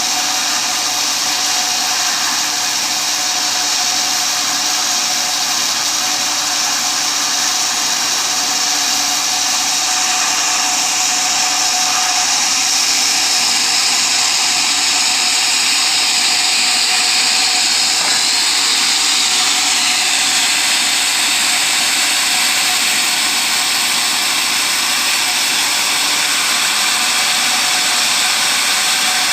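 Sawmill saw running and cutting teak timber, a loud, steady, high-pitched whine. About two-thirds of the way through, the pitch sags and then comes back.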